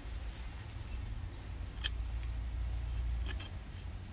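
Small metal hand trowel digging into mulch and soil, with a few short scrapes about a third of a second, two seconds and three seconds in, over a steady low rumble.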